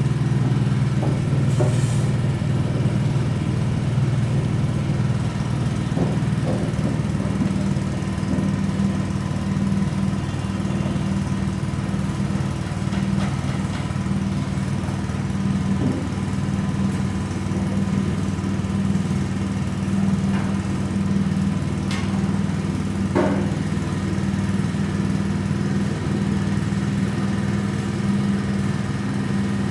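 Honda GX petrol engine running steadily under load, driving a coconut-milk press through a reduction gearbox, with a few short clicks.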